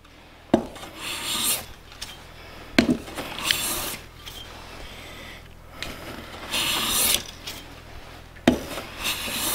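Metal bench hand plane shaving a thin wooden veneer in short partial passes: about four brief hissing strokes, three of them starting with a sharp knock as the plane lands on the board. The passes are thinning the thicker side of the veneer down to an even thickness.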